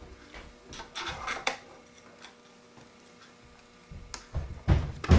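Light clicks and taps of a laptop's plastic case and a small screwdriver being handled while its base screws are fitted. A few clicks come in the first second and a half, and a cluster of knocks starts about four seconds in, the loudest near the end.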